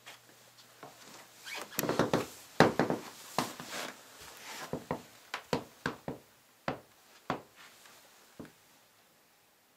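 Irregular knocks and clicks, about a dozen, with a denser noisy cluster around two seconds in, dying away about a second before the end: handling noise around a large cardboard box.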